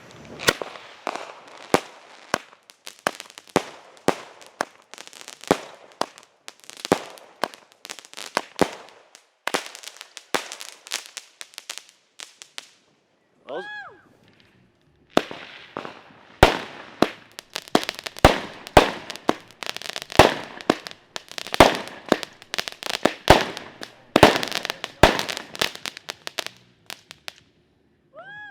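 A 200-gram, 8-shot consumer firework cake firing. It gives rapid volleys of sharp bangs and crackling reports in dense clusters. About halfway through there is a pause of a couple of seconds before a second long run of bangs.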